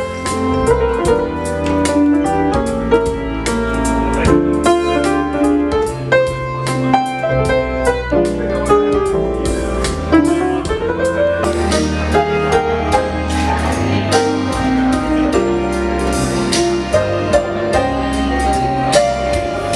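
Piano played live in a swing jazz style, over a backing of bass notes and drums.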